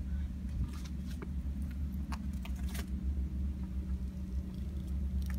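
Steady low rumble with a faint hum, with a few light crunches of gravel scattered through the first three seconds.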